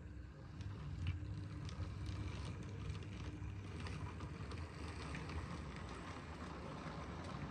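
Bachmann B1 model railway locomotive running along the track with its train: a steady low rumble of the motor and wheels on the rails, with faint scattered clicks.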